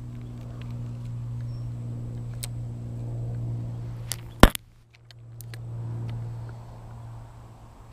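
Spinning rod being cast: a single sharp whoosh of the rod swung through the air about four and a half seconds in, with a few light clicks from the spinning reel before it. A steady low hum runs underneath.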